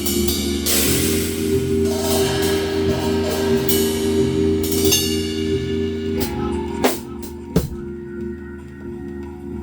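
Music: a drum kit with cymbal crashes and snare over sustained low chords and a repeating bass line.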